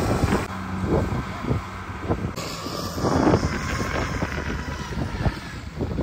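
Engines of tracked rice-harvest machinery, a combine harvester and a crawler carrier loaded with rice bags, running with a steady low hum and scattered clanks.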